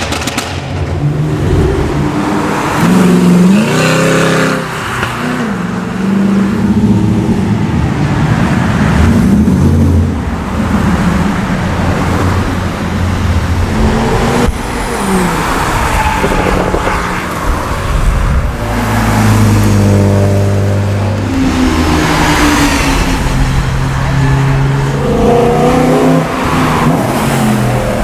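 Track-day cars passing one after another at speed, their engine notes rising and falling as each goes by, often with several overlapping.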